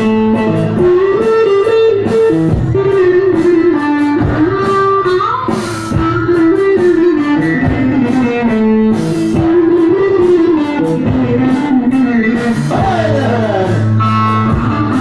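Live folk dance music: a plucked string instrument plays a winding melody over a steady drone, with regular drum strikes keeping the beat.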